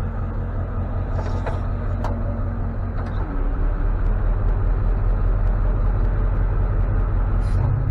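Tow truck engine running steadily at idle with a low hum and a few light clicks. It grows louder about three seconds in.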